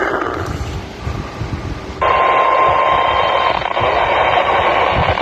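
Radio receiver static: a steady hiss that sinks for a moment, then jumps back louder about two seconds in, with a brief steady whistle-like tone just after the jump.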